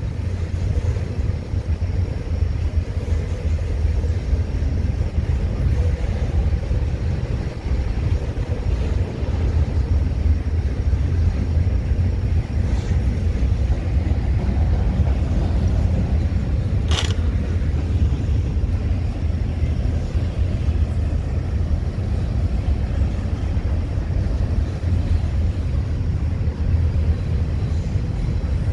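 Intermodal freight train of stacked containers passing, a steady low rumble, with one sharp bang a little past the middle.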